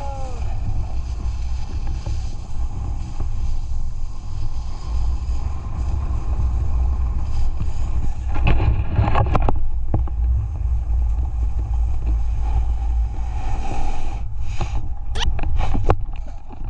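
Wind rumbling hard on the camera microphone, with a few short, sharp crackles about halfway through and again near the end.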